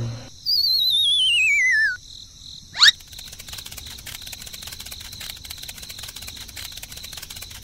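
Cartoon sound effects: a loud warbling whistle sliding downward for about a second and a half, a quick rising zip about three seconds in, then steady chirping of crickets.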